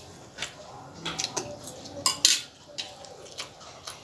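Cutlery clinking and scraping against a plate while eating, a string of light clicks, with a short noisy burst a little after two seconds in.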